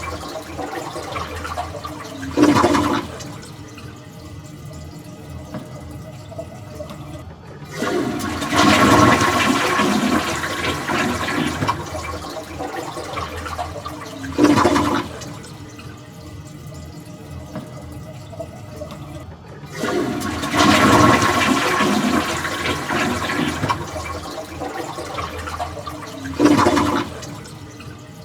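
Toilet flushing repeatedly, with water running throughout. Twice a long rush of water lasts about five seconds, and short loud surges come about every twelve seconds in between.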